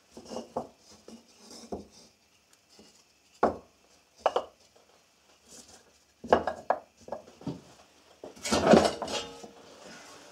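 Wooden blocks being knocked and set down on a wooden workbench, a string of separate hard knocks. Near the end comes a louder rattling clatter as a large tray is lifted off the bench.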